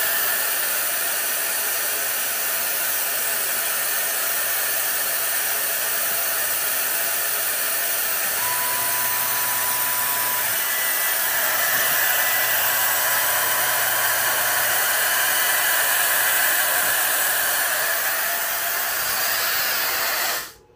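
Steady loud rush of air around a CNC diode laser head while it cuts, with a thin whine that comes and goes twice in the middle. The rush cuts off suddenly near the end.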